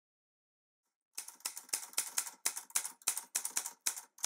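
Typewriter keys clacking in a quick, even rhythm of about four strikes a second, starting about a second in.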